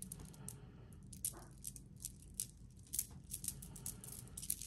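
Beads of a multi-strand pearl necklace clicking and rattling against each other as it is handled, in many short, irregular clicks.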